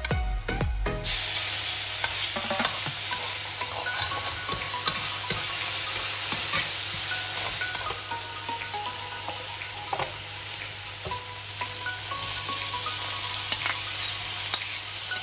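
Oil sizzling steadily in a non-stick frying pan as finely chopped aromatics fry, stirred with a metal spoon that scrapes and taps the pan, with one sharp knock near the end.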